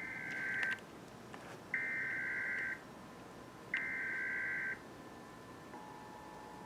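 Emergency Alert System header tones played from a TV: three one-second bursts of shrill digital data tones, about two seconds apart. About five and a half seconds in, the steady two-tone EAS attention signal begins.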